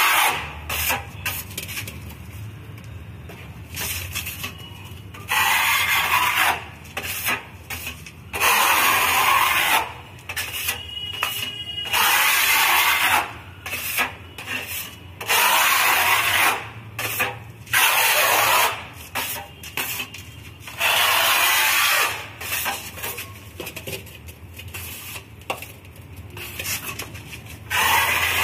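Metal putty knife scraping white wall putty across a rough cement-plastered wall: repeated rasping strokes, each about a second long, with softer scraping between them and a pause of several seconds near the end.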